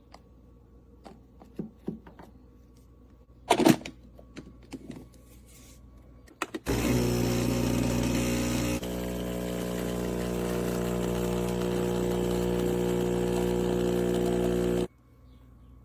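Espresso machine pump buzzing steadily for about eight seconds, then cutting off abruptly. Before it come a few light clicks and knocks, one louder knock about three and a half seconds in.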